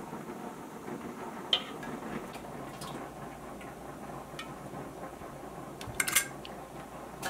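Glass canning jars clinking as hot jars are lifted from a pressure canner and set down with a jar lifter: one sharp, ringing clink about a second and a half in and a quick cluster of clinks near the end, over a steady low background hiss.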